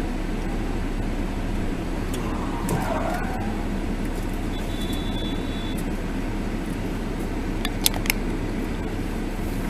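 Steady engine and road hum of a car, heard from inside the cabin through a dashcam microphone, with a short high beep about halfway through and a couple of sharp clicks near the end.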